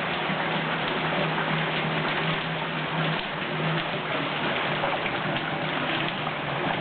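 Steady rain, an even hiss of falling water, with a low hum underneath that comes and goes.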